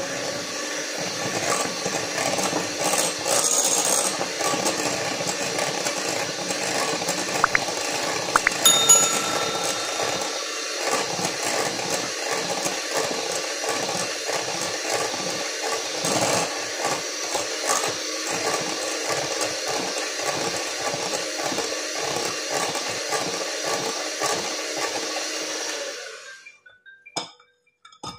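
Handheld electric mixer running steadily as its beaters whip cream cheese batter with a freshly added egg in a glass bowl, with a few sharp clinks of the beaters against the glass about eight seconds in. The motor stops near the end.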